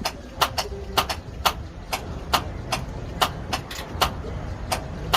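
Volvo D13 starter solenoid clicking sharply over and over, about two or three times a second at uneven spacing, without the engine cranking: the starter motor has failed. A steady low rumble runs underneath.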